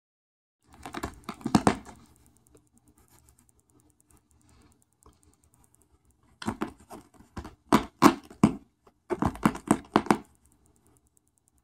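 A cat's paw and a pen scratching and scuffing against a fabric sofa cushion, in quick strokes that come in three bursts: about a second in, then around six to eight and a half seconds in, and again near the end.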